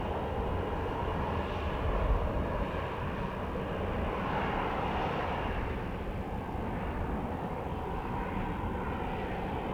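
Aircraft engine noise: a steady rush and rumble that swells slightly about four to five seconds in.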